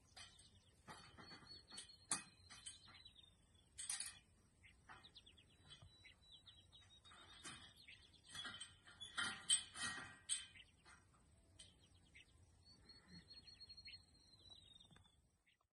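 Faint birdsong: repeated quick high trills and chirps. Sharp clinks and knocks about nine to ten seconds in, from a metal pipe gate being worked by a rider on horseback.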